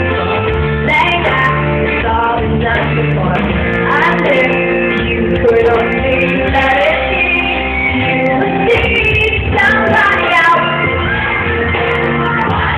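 Live pop-rock band playing in an arena, with a woman singing, heard from among the audience with the hall's echo.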